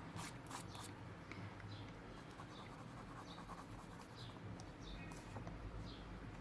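Faint scratching of a pencil on drawing paper: a quick run of short strokes in the first second, then single light strokes every second or so.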